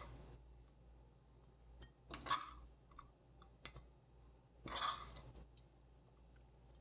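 A spoon stirring sticky, honey-glazed baby squid around a nonstick wok off the heat, so there is no sizzle: a few short, wet scraping strokes a couple of seconds apart, with light clicks of the spoon between.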